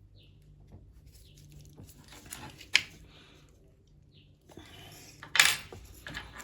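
Small metal parts clicking and clinking while a blade is fitted to an oscillating multitool with its bolt, washer and Allen key: scattered scrapes, a sharp click a little under 3 seconds in and a louder clatter near the end.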